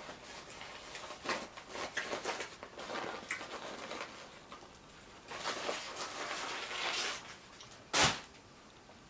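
Rustling and crinkling of paper fast-food packaging being handled at a table, in uneven spells, with one sharp knock about eight seconds in.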